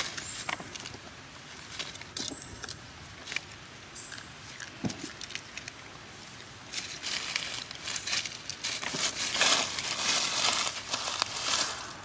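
Dry leaves crackling and rustling as long-tailed macaques move over and handle them, with scattered sharp clicks, growing denser and louder about seven seconds in.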